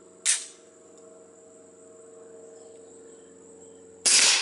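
A Glock 19 9mm pistol with a SilencerCo Octane 45 suppressor fires one subsonic 147-grain round about four seconds in, a loud suppressed shot. Before it, insects chirr steadily, and there is a short sharp noise near the start.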